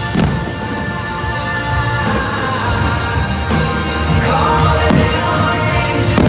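Pop-rock song with singing, played loud over a stadium sound system.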